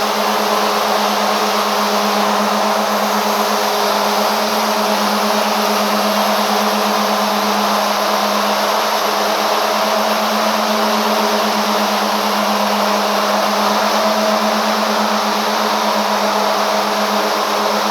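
Fancy yarn machine running steadily: an even whirring hum with a constant low tone that does not change.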